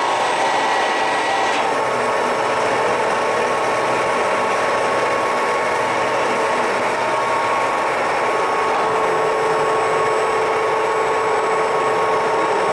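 WMW ZFWZ 250/4 CNC gear hobbing machine running under power: a steady mechanical hum and hiss with several whining tones. A high tone stops about a second and a half in, and a lower whine comes in near the end.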